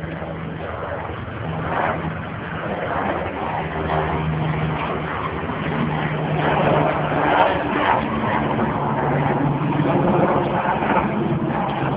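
A motor running, its low hum shifting up and down in pitch several times, over a steady hiss.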